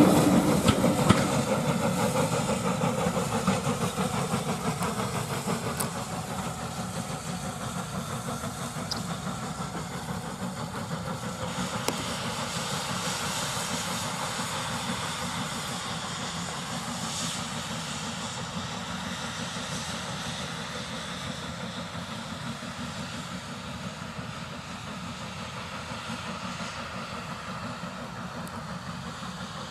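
Saddle-tank steam locomotive hauling coaches past and drawing away, its running and exhaust noise fading steadily into the distance.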